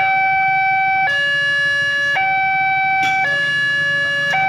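Railroad level-crossing warning alarm sounding from the loudspeaker on the crossing signal post: an electronic two-tone sound switching between a higher and a lower tone about once a second.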